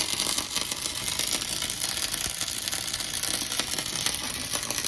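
Dual Shield flux-cored (FCAW) welding arc crackling steadily, run at about 22 volts and 260 amps.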